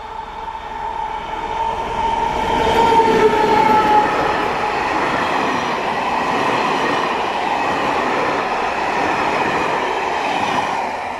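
Diesel-hauled passenger train passing close by at a level crossing. The sound builds as the locomotive nears and goes past about three to four seconds in, with a tone that stands out over the noise. Then comes a loud steady rush of coach wheels on the rails, easing just before the end.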